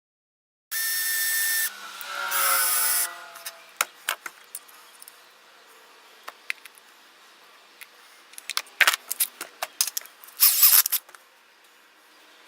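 Power drill running briefly, then winding down in pitch as the motor spins down, followed by scattered clicks of parts being handled and another short drill run near the end.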